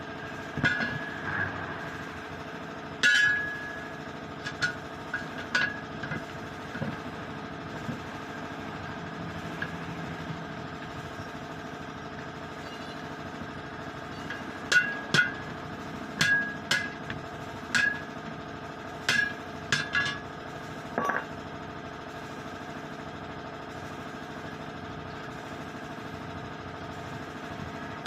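Steel on steel: sharp metal clanks with a short ring as a truck wheel rim is struck while a tyre is fitted onto it. The clanks come irregularly, a cluster in the first few seconds and another run about halfway through, over a steady low hum.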